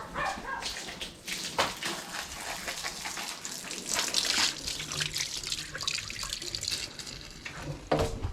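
Water running and splashing, a tap-like rush with irregular small clinks.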